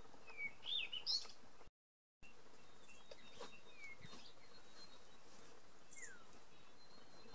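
Wild birds chirping: a quick run of short, sliding chirps near the start, then a few fainter calls, one a falling note near the end, over a steady background hiss. The sound cuts to dead silence for half a second about two seconds in.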